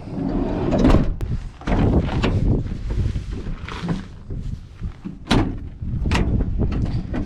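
A string of rustles, knocks and sharp door-like bangs, the sharpest about five seconds in, over a low rumble of wind on the microphone.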